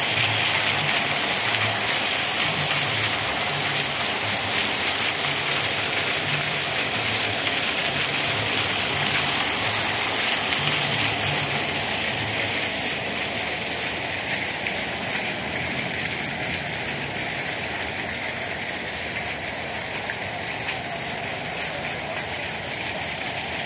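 Fountain water jets pouring and splashing into a stone basin: a steady rushing splash that grows a little quieter about halfway through.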